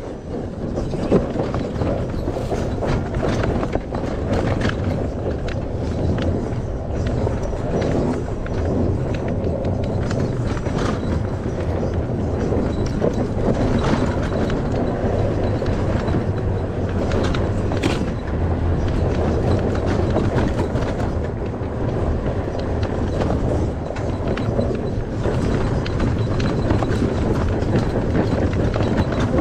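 Christini electric ATV with four-wheel hub motors driving at speed over a rough dirt track, with no engine sound: a steady low rumble from the tyres on the ground, broken by frequent sharp knocks and rattles as the machine goes over bumps.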